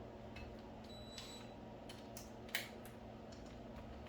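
Light clicks and clinks of small metal tools and engine parts being handled, with a brief metallic ring about a second in and one sharper click past the middle, over a steady low hum.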